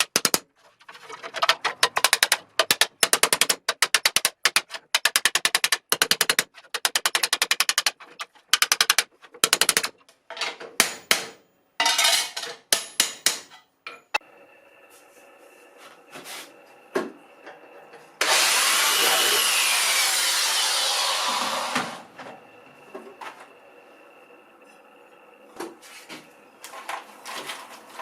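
Rapid mechanical clattering in on-off bursts for about the first half, then a faint steady hum broken by a hiss lasting about four seconds.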